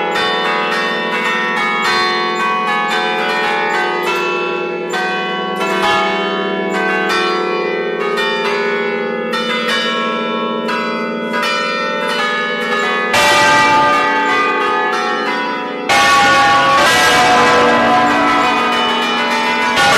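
A peal of church bells rung 'alla romana', heard close up in the belfry: many strikes overlapping, each bell ringing on in long held tones. About thirteen seconds in the ringing grows louder and fuller, and it rises again a few seconds later.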